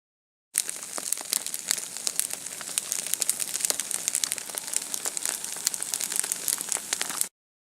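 Dense, irregular crackling: many small sharp clicks, starting about half a second in and cutting off suddenly near the end.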